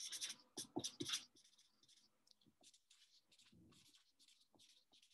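Pen scratching on paper as wave curves are drawn by hand: a few louder scratches and taps in the first second or so, then a run of lighter short strokes, about three a second.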